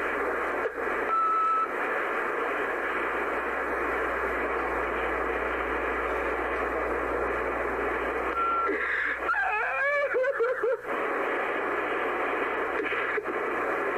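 Recorded emergency phone call on hold: steady telephone-line hiss, with a short beep about a second in and another about eight seconds in, and a brief wavering voice around ten seconds in.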